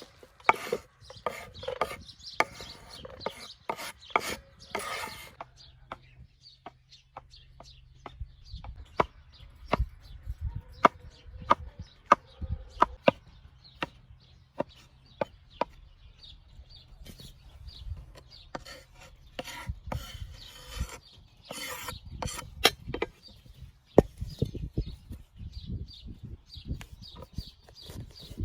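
Irregular sharp knocks and taps on wood, with stretches of scraping or rubbing.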